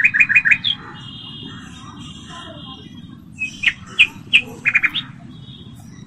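Peacock calling in quick runs of four or five short, sharp notes, one run at the start and another about five seconds in, with a thin steady whistle in between.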